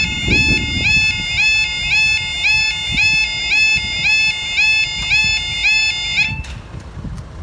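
Level crossing audible warning alarm sounding a repeating rising yelp, about two cycles a second, then cutting off suddenly about six seconds in.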